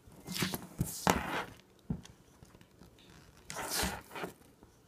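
Colored pencil scratching on lined notebook paper in quick strokes: a burst of scribbling near the start, a short stroke around two seconds, and another burst past the middle.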